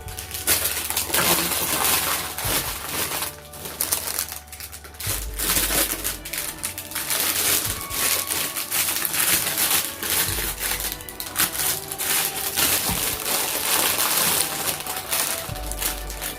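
Packaging rustling and crinkling in irregular bursts as a tray is handled and packed back into its box.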